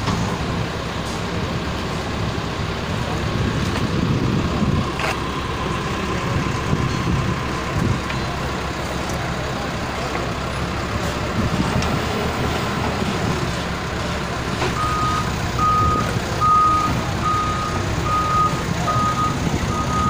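Heavy vehicle engine running steadily at a demolition site, joined about three quarters of the way in by a reversing alarm beeping evenly, roughly one to two beeps a second.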